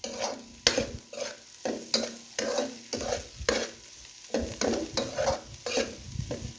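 Onion, garlic and pimento frying in hot oil and butter in a pot, sizzling, while being stirred in repeated scraping strokes, about two or three a second.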